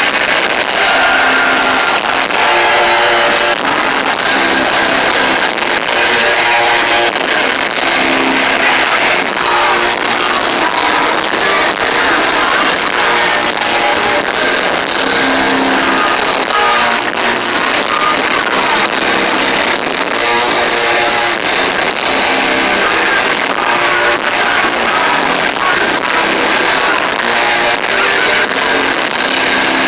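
Live heavy rock band with electric guitars playing loud, recorded from the audience with poor, overloaded sound that is thin and has little bass.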